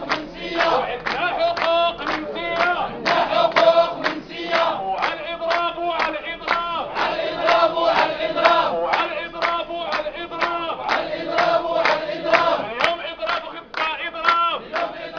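A crowd of men chanting together in unison, repeating short phrases in a steady rhythm.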